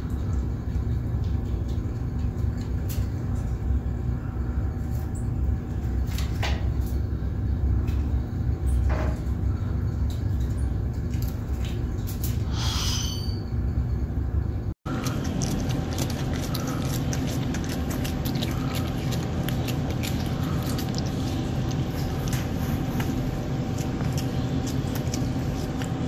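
Steady low hum and rumble of an indoor room, with scattered faint clicks and a short high chirp about 13 seconds in. It drops out briefly around 15 seconds and comes back as a lighter hiss with frequent faint ticks.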